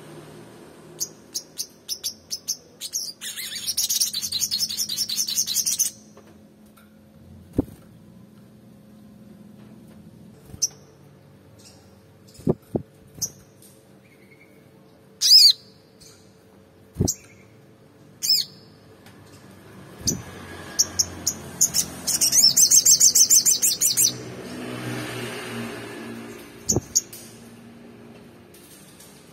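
Sunbird song: scattered sharp, high chirps and two fast trilling bursts of a couple of seconds each, one early on and one in the latter part. A few soft knocks and a faint low hum lie underneath.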